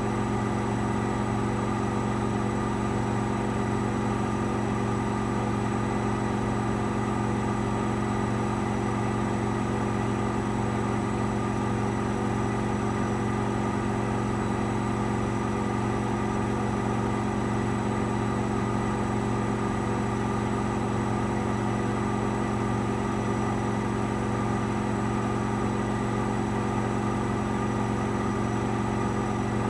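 AEG Lavamat 8000 Series front-loading washing machine in its final spin, the drum held at a steady high speed. The motor and drum give a steady hum and whine that does not change in pitch.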